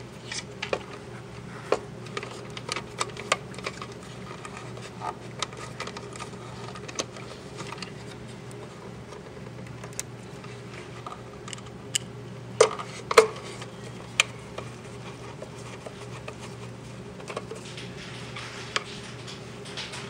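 Scattered light clicks and rattles of insulated wire connectors and wires being handled and pushed onto terminals inside a sheet-metal switch box, with a couple of sharper clicks about twelve to thirteen seconds in. A steady low hum runs underneath.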